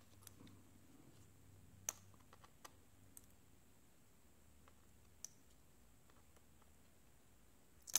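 Near silence broken by a few faint, sharp clicks of a small precision screwdriver tip against the home button and the plastic and glass of an iPad digitizer panel, the clearest about two seconds in and another a little past five seconds.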